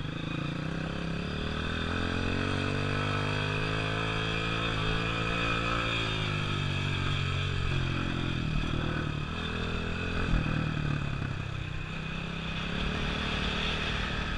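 A vehicle engine running, its pitch rising and falling as the throttle is worked, mostly in the first half.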